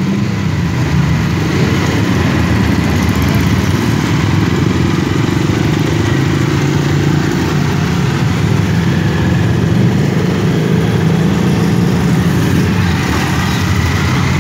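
Several motorcycle engines running steadily through a slow group ride, heard from a moving motorcycle.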